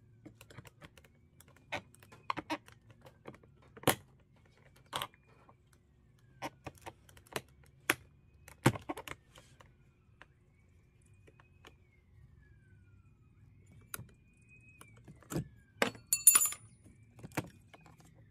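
Scattered clicks, taps and small knocks of a hand tool prying at the plastic interior door-handle trim of a Chevy Impala door panel, with a brief metallic jingle near the end.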